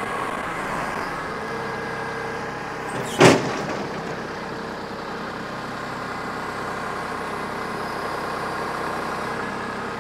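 Compact tractor engine running steadily while its front loader lifts a chained rotary mower, with one loud, sharp clank about three seconds in.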